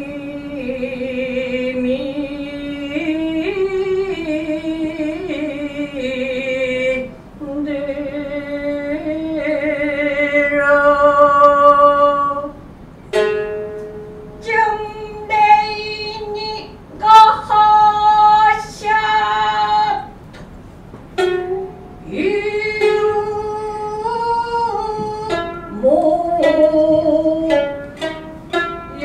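Gidayu-style joruri chanting with futozao shamisen: the narrator holds one long, drawn-out sung line with wavering pitch, then from about halfway sharp plucked shamisen notes alternate with short chanted phrases.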